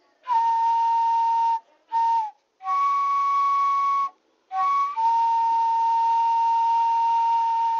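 Breathy flute playing slow, long held notes in short phrases with brief pauses, each note dipping briefly at its end, then a long sustained note.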